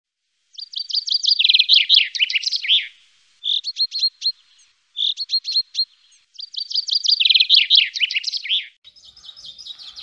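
Common chaffinch singing: two long songs of rapid notes, each about two seconds, with two shorter phrases between them. Near the end a fainter song comes in over light background noise.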